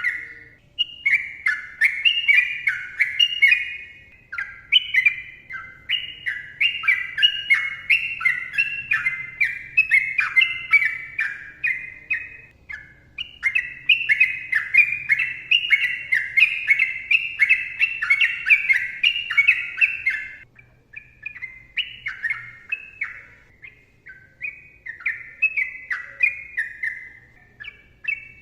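Sooty-headed bulbul (trucukan) singing long, fast runs of quick sliding notes, each run lasting several seconds, with short breaks between them.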